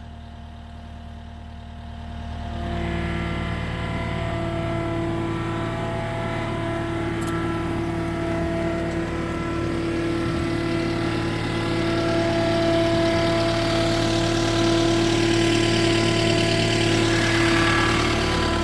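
Skid steer loader's engine idling, then throttled up over about two seconds and running steadily at higher revs, growing a little louder later on.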